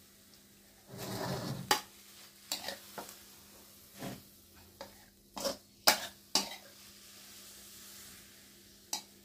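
Metal spatula scraping and knocking against a metal wok as stir-fried mushrooms are tipped out onto a plate: a short scrape about a second in, then a string of sharp clinks and taps.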